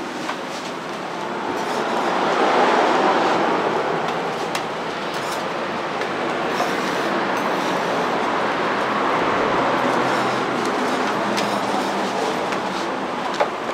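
Steady rushing noise from the hot roti griddle station while thin crepes cook, with a few light clicks of a metal scraper against the iron pan.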